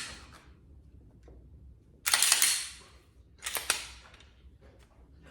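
Glock 19 Gen 5 pistol being cleared: the polymer-framed pistol's steel slide racked by hand twice, about 2 s in and again about a second and a half later, each a short metallic rasp ending in a sharp clack.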